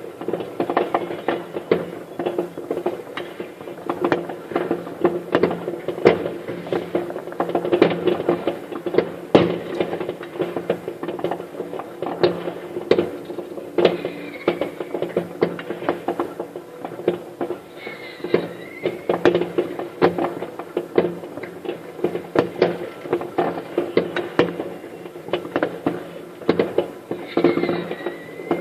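New Year's fireworks going off all around: a dense, continuous crackle of bangs and pops, several a second, with a few short whistles among them.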